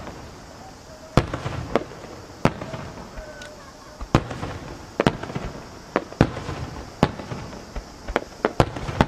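Aerial firework shells booming: more than a dozen sharp reports at irregular intervals, several coming in quick pairs or triplets, between them a steady crackling hiss.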